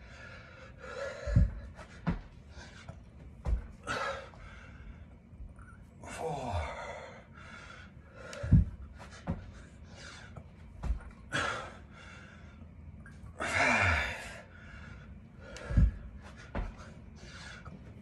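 A man breathing hard, with loud gasping exhales every few seconds, while doing dumbbell burpees. Between the breaths come several dull thumps on the floor as he drops down and jumps back up with the dumbbells.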